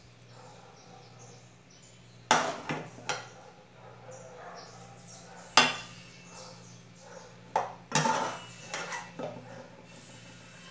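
A metal spoon clinking and scraping against a frying pan and a glass baking dish while ground-beef sauce is scooped out and spread onto eggplant halves. The sharp knocks are scattered, the first about two seconds in and a cluster near the end.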